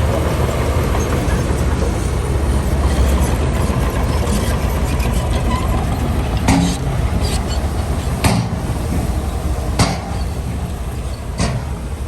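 Heavy diesel earthmoving machinery running steadily with a deep engine rumble. Four sharp knocks come in the second half, about a second and a half apart.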